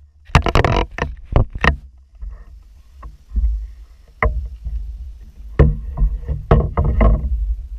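Paddling a skin-on-frame canoe: a string of sharp knocks and splashy strokes, several in quick succession in the first two seconds and more again in the second half, over a steady low rumble.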